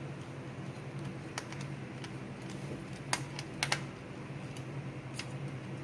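A few sharp clicks of a screwdriver working the CPU cooler fan's mounting screws tight, with a pair of clicks close together in the middle, over a steady low hum.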